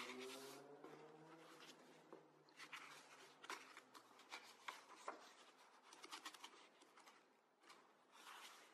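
Soft, faint handling of the Somerset Book White paper pages of a small stab-bound book: scattered crisp rustles and light flicks as the pages are held and turned, the sharpest right at the start.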